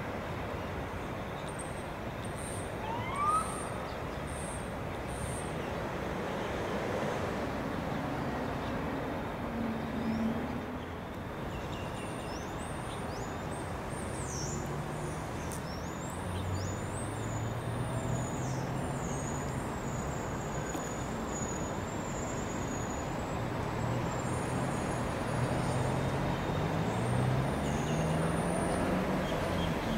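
A distant diesel train's engine drone over a steady rumble, growing louder toward the end as its low note steps up in pitch. Birds chirp high above it.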